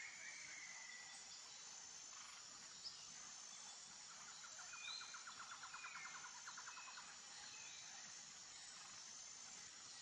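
Faint outdoor nature ambience: scattered short whistles and chirps over a soft hiss. About halfway through comes a rapid trill lasting about three seconds.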